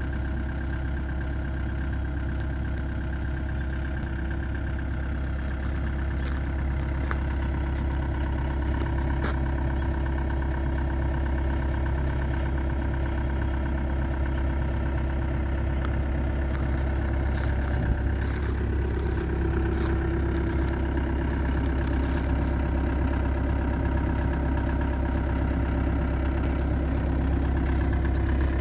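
Diesel engine of a John Deere 75G compact excavator idling steadily, with a slight shift in tone and a small rise in level a little past halfway.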